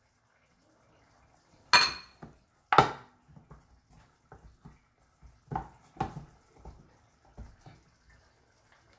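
A stainless steel mixing bowl knocked by a small bowl as flour is tipped in: two sharp knocks with a short metallic ring, about a second apart, near two seconds in. Then lighter, irregular bumps and taps as hands knead potato gnocchi dough in the metal bowl.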